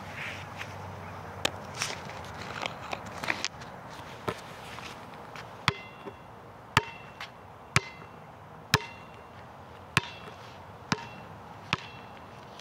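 Basketball dribbled on an outdoor court, about one bounce a second, each bounce a sharp smack with a short high ring. Scattered rustling and knocks come before the steady dribbling starts, about four seconds in.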